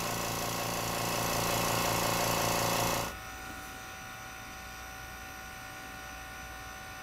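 Small tank piston air compressor running with a steady hum and hiss, then stopping abruptly about three seconds in, leaving a faint steady hum.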